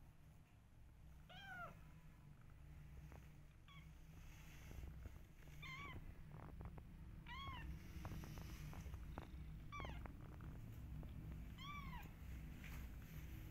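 Young kittens mewing: about six short, high-pitched mews, each rising then falling in pitch, spaced roughly two seconds apart.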